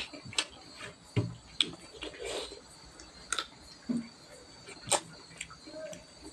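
Hand-eating rice from a stainless steel plate: fingers scraping and pressing the rice against the steel, and wet mouth clicks and smacks of chewing, heard as a string of sharp clicks.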